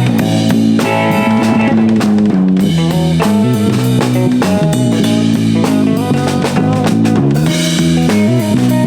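Rock band playing with a full drum kit and guitar, the drums keeping a steady beat under held guitar notes.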